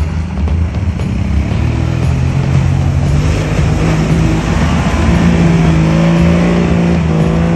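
Engine of an old Toyota Land Cruiser FJ60 revving under load as it drives out of a river and climbs a steep bank. The pitch rises about two seconds in and holds high, over the splash and churn of the wheels in water.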